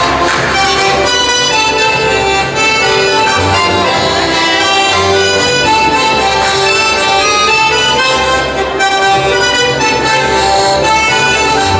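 Live traditional Friulian folk dance music from a small band with a double bass, a steady melody over a regular bass line.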